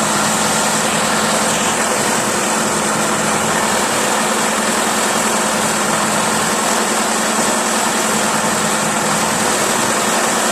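DT-75 crawler tractor's diesel engine running steadily.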